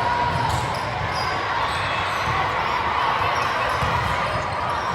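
Volleyball play in a gymnasium: a steady, echoing hum of crowd noise, with short squeaks and soft thumps from the court scattered through it.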